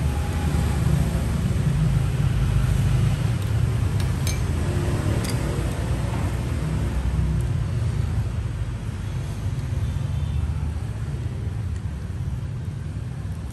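Steady low rumble of road traffic, with a couple of faint light clicks about four and five seconds in.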